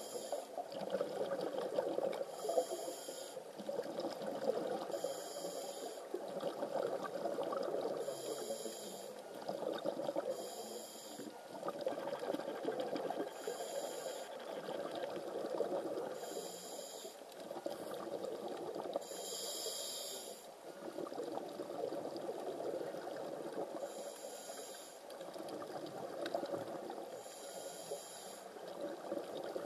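A diver's breathing heard underwater. Short hisses come every few seconds, with bubbly, gurgling exhalations between them.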